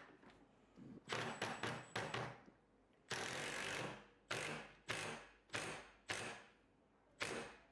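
A drill spinning a threaded steel rod in short bursts, each starting sharply and fading within about half a second. There is one longer, steadier run about three seconds in, and the bursts come roughly every half-second to second.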